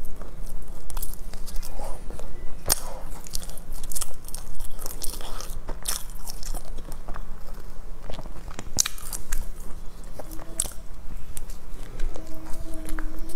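Close-miked eating of a crusty filled bread roll: the crust crackling as it is torn apart by hand, bites, and wet chewing, in many quick sharp crackles. A brief steady hum comes in near the end.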